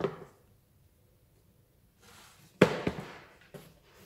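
Cardboard box and its contents being handled: a short rustle, then a few sharp knocks about two and a half to three and a half seconds in, the first the loudest.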